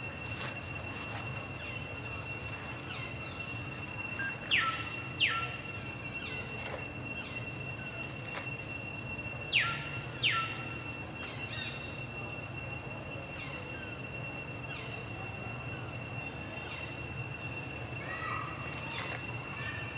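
Outdoor forest ambience: a steady high-pitched insect drone, broken by two pairs of loud, sharp falling calls about four and a half and nine and a half seconds in, with fainter calls near the end.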